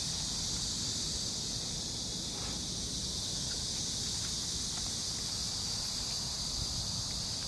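A chorus of cicadas buzzing steadily and unbroken, high-pitched, over a low rumble.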